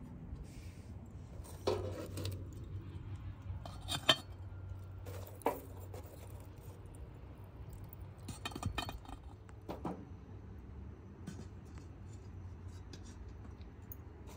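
Metal tongs setting lumps of charcoal onto an aluminium pot lid: a handful of separate clinks and knocks a second or more apart, the first about two seconds in with a short ring.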